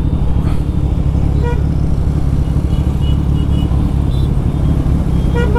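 Steady low rumble of wind and motorcycle engine on a rider's microphone in city traffic, with short vehicle horn toots from other traffic: one about a second and a half in and several quick ones near the end.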